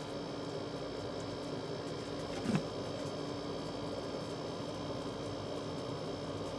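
Steady hiss and hum of room tone, with one brief sound about two and a half seconds in.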